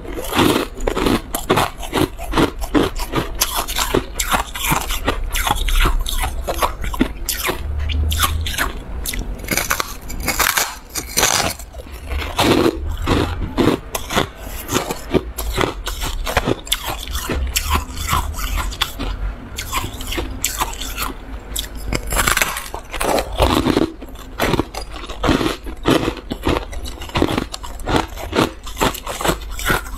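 Biting and chewing a slab of frosty shaved ice close to the microphone: a dense, continuous run of crisp crunches and crackles.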